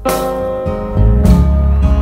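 Acoustic guitar strumming chords in a song, with a fresh strum at the start and another about a second in, the chords ringing on between them.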